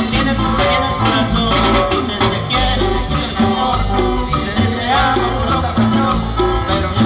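Live band playing Latin dance music, with a steady bass line, shaker and drum beat, and melody instruments.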